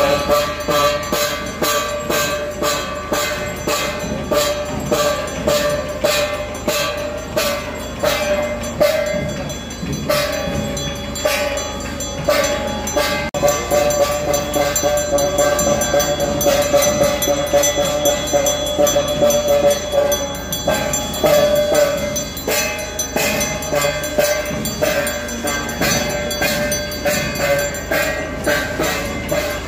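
Temple festival music: fast, steady percussion beats, about three or four a second, under a loud, held, horn-like tone.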